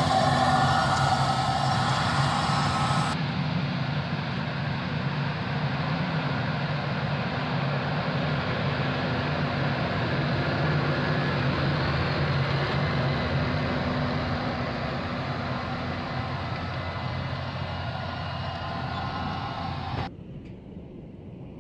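Versatile 260 tractor's Cummins diesel engine running steadily under load as it pulls a six-row corn planter through the field. Near the end the engine sound cuts off to a much quieter background.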